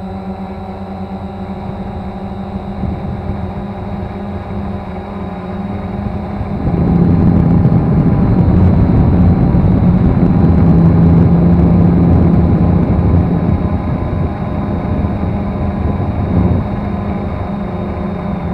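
Cheerson CX-20 quadcopter's motors and propellers whirring steadily, picked up by the camera mounted on the drone. The sound swells into a louder rush about seven seconds in and eases again after about thirteen seconds, as the drone manoeuvres.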